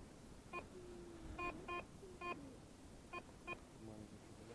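Garrett ACE 350 Euro metal detector giving target tones as the coil sweeps: about six short high beeps, with a lower tone held for about a second near the start and another low tone near the end. The mix of tones is what the detectorist reads as mixed metal.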